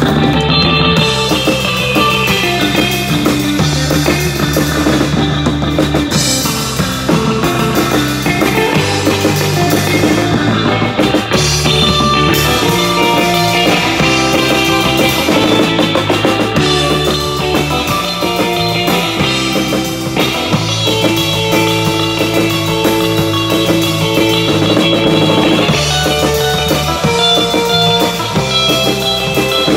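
Live surf rock instrumental played by a band on electric guitar, a second guitar and a Ludwig drum kit, playing steadily and loud without a break.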